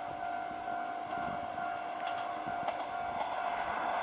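Level-crossing warning bell ringing with a steady, repeating tone. A diesel railcar (KiHa 2402) approaches the crossing, and its running noise grows louder near the end.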